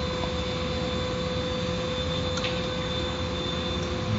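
Car wash machinery running: a steady rushing noise with a constant hum.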